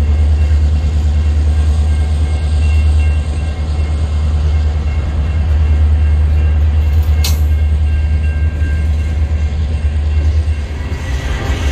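Freight train of covered steel coil cars rolling past at close range: a steady, heavy low rumble of wheels on rail, with a single sharp knock about seven seconds in.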